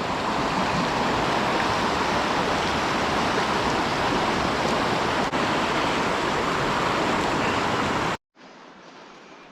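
Flooded river in spate: a loud, steady rush of fast-flowing water. It cuts off abruptly about eight seconds in, leaving a much quieter background.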